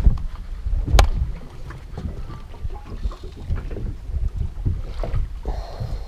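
Wind buffeting the microphone and water slapping against the hull of a small boat at sea, an uneven low rumble, with one sharp knock about a second in.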